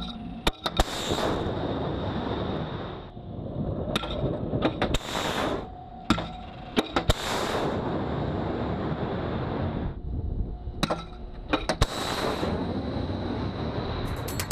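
SeaRAM close-in weapons launcher firing RIM-116 Rolling Airframe Missiles: several launches, each a sharp crack followed by a brief rush of the rocket motor.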